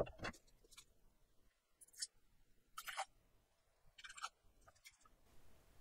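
Short rustles and crinkles of a disposable incontinence pant being handled, about seven quiet bursts scattered a second or so apart.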